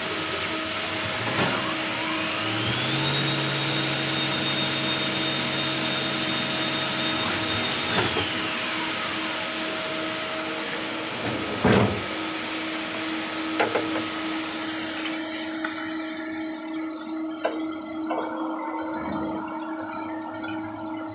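CNC lathe running a turning cycle between centres: a spindle whine rises about two seconds in, holds steady for several seconds, then falls as the spindle slows, over a constant machine hum. There is a loud clunk about halfway through, then the machine runs quieter with a few small clicks.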